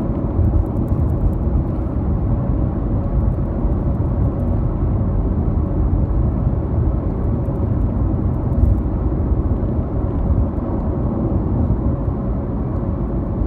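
Steady low rumble of road and engine noise from inside a moving vehicle.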